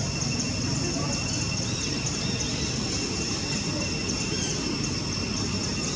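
Steady outdoor background noise: a continuous low rumble under a high, even buzzing drone, with a few faint chirps.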